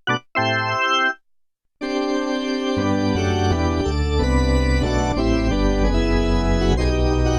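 Roland JD-990 digital synthesizer playing an organ-like patch: a couple of short chords, a brief gap, then long held chords, with deep bass notes coming in about three seconds in.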